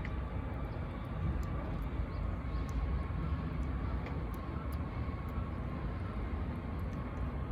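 Steady low outdoor rumble, like distant traffic or an aircraft, with a faint steady whine over it and a few faint small clicks.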